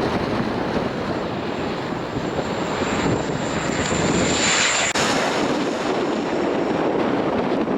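Turboprop airliner coming in to land, its engines and propellers running with a thin high whine that grows and stops abruptly about five seconds in, over strong wind buffeting the microphone.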